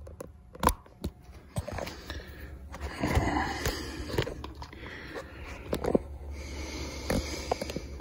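Four-cylinder two-stroke engine of a 1989 Mercury 45 hp outboard being cranked over in several short bursts without firing: it has no spark. A few sharp clicks come about a second in.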